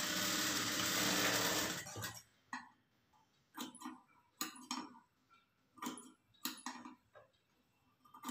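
Industrial lockstitch sewing machine running a short seam for about two seconds, then stopping abruptly. A series of short snips and rustles follows as scissors cut the fabric strip and threads.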